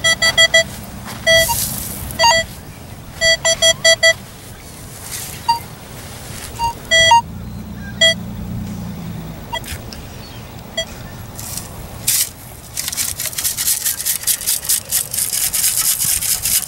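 Nokta Makro Legend metal detector beeping as its coil is swept over a target in the sand: short tones, mostly at one pitch, some in quick runs of three to five. In the last few seconds sand hisses and rattles as it is shaken through a perforated sand scoop.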